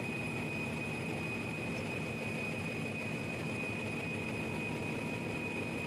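Steady drone of running engine-room machinery, with a thin high whine held at one pitch; the large generator engine is kept running.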